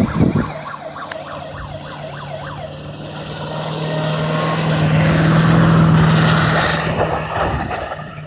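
A 1995 Ford F-250 pickup's engine is held at steady high revs while the truck spins donuts on snow. It gets louder to a peak midway as the truck swings closest, with a rising hiss from the spinning tyres, then fades as it turns away.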